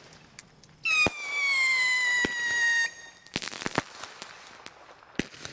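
Consumer fireworks going off: a sharp bang about a second in and a loud whistle that falls slightly in pitch over about two seconds, then a quick cluster of crackling reports and scattered single pops.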